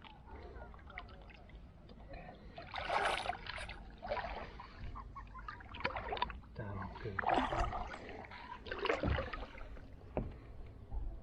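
Small boat being rowed on a lake: a splashy swash of water at each stroke, one every second or two, over a low rumble.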